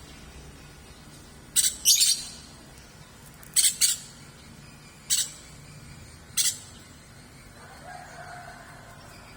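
A hand spray bottle squirted in about seven short hissing bursts, several in quick pairs, misting a caged songbird for its bath. A rooster crows faintly near the end.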